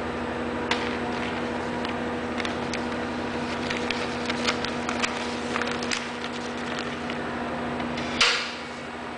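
Omar AC8 printer running a sample print: a steady mechanical hum with scattered light clicks. Near the end there is one louder clack, and the lower part of the hum stops.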